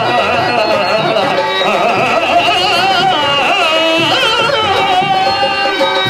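Carnatic-style stage music: a voice singing a drawn-out, ornamented melody with gliding notes over steady held accompanying notes, with tabla.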